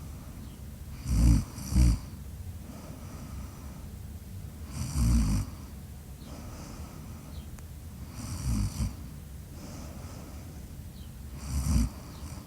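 Snoring: four loud snores about three seconds apart, the first broken into two quick pulls, over a steady low background.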